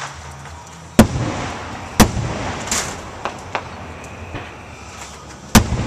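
Aerial firework shells bursting: three loud booms, the first two a second apart and the third near the end, each trailing off in a rumbling echo, with a few smaller pops in between.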